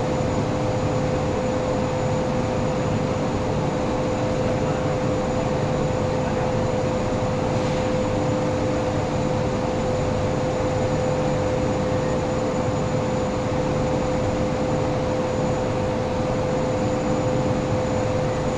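Electric machine motor running steadily: an even hum with a constant whine.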